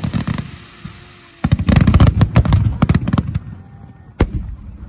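Fireworks going off in rapid volleys of sharp cracks. A crackling run stops just after the start, a second run follows for about two seconds, and one single loud crack comes near the end.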